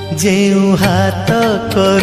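Instrumental interlude of an Odia Jagannath bhajan: a melodic lead line sliding between notes over percussion strokes.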